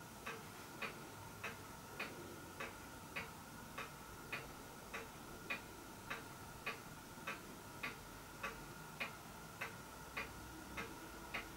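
A clock ticking faintly and evenly, a little under two ticks a second, over a faint steady high-pitched hum.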